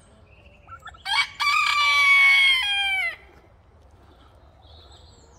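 Rooster crowing once: a single loud crow about two seconds long, starting about a second in, its pitch dropping at the close.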